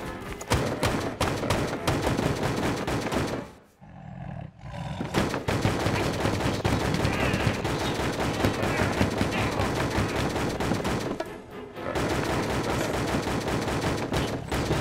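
Cartoon soundtrack of a fast, continuous rattling clatter of rapid knocks, with music under it. It breaks off briefly about four seconds in and again near the twelfth second.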